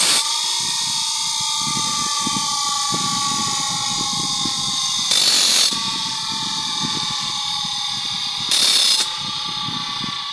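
Bench grinder's abrasive wheel running with a steady whine and a low, irregular rattle, with two short harsh grinding bursts, about five and eight and a half seconds in, as a handsaw blade is pressed to the wheel.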